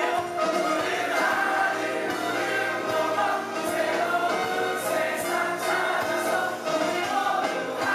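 A stage musical's cast singing together in chorus.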